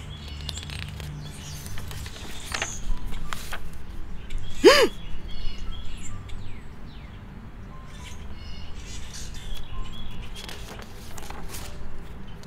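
Soft background music with birds chirping, and a few light clicks. About halfway through, a single short call rises and falls, the loudest sound in the stretch.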